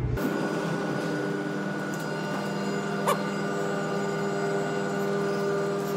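Steady mechanical hum holding several fixed tones, typical of a ship's running machinery and ventilation fans, with a brief small chirp about three seconds in.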